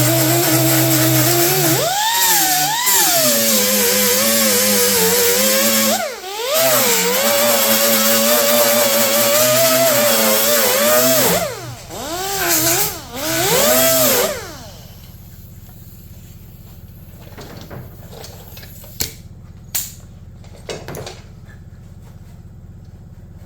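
Electric grinder running against sheet steel, smoothing the edge of a car hood patch panel; its whine sags in pitch as it bites and climbs back when eased off. It lets off briefly about six seconds in and twice more before stopping about fourteen seconds in, leaving a low hum and a few light clicks.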